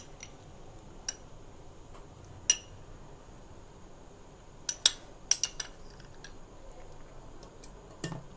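A spoon knocking and clinking against a portable blender's plastic jar as yogurt is spooned in: a few separate clicks, then a quick cluster of them about five seconds in, and one more near the end.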